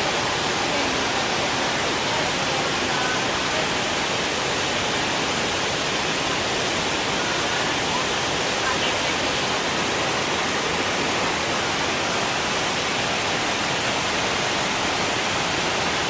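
Kegon Falls, a 97 m waterfall running high after rain, roaring steadily as it drops into its plunge pool: a dense, unbroken rush of water.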